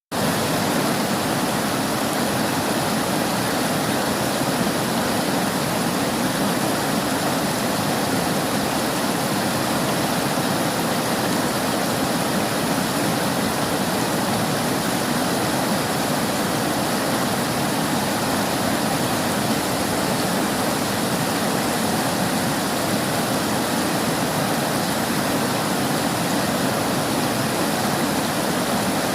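River water flowing, a steady unbroken rush of water.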